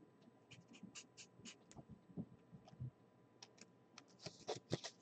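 Faint scratching of a marker writing on a sticky note, in quick short strokes with a brief pause midway.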